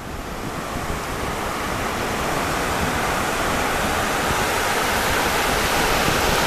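Surf washing up over a sandy beach: a steady rush of seawater that builds over the first couple of seconds and then holds.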